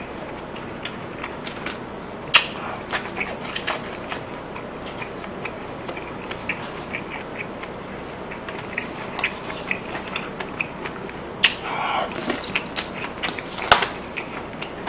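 A person chewing food close to the microphone, with many small wet mouth clicks and a few sharper clicks of disposable chopsticks. A brief hum around two-thirds of the way through.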